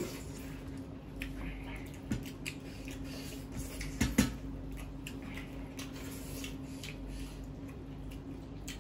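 Eating sounds: people chewing and smacking while fingers work food on steel plates. There are scattered soft clicks and squishes, the sharpest about four seconds in, over a steady low hum.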